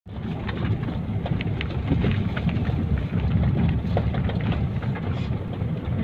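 Steady low rumble of wind and road noise from a moving vehicle, with scattered light clicks.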